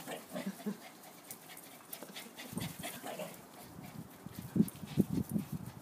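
Shih-Tzu x Lhasa Apso panting hard from running, the breaths getting louder from about halfway through.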